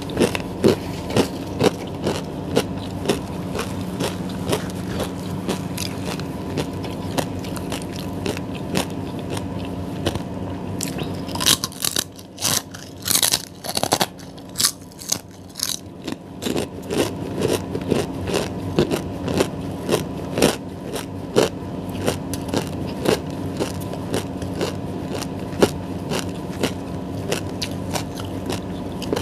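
Close-up mouth sounds of a person eating: biting and chewing with many small wet clicks and crackles, with a louder crackly stretch about halfway through. A faint steady hum runs underneath.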